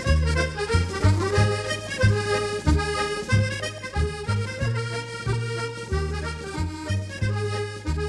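Background music: an accordion tune, a melody over a steady, repeating bass.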